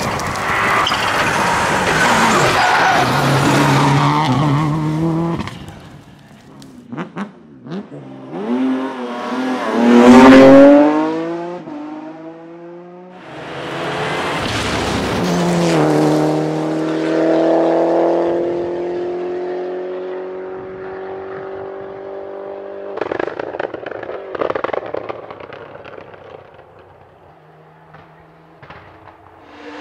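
Rally cars at speed on a stage, engines revving hard. One passes close about ten seconds in, its note swelling and then dropping away, and another's note falls steadily as it pulls away. Sharp pops and crackles come twice in between.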